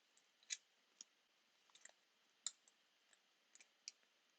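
Faint scattered clicks of a trading card and its plastic holder being handled, about half a dozen light ticks as the card is worked into the sleeve.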